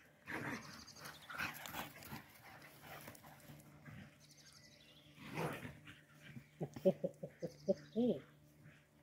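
Dogs at play: a quick run of about eight short barks near the end, the loudest sound, with scattered rustling noise before it.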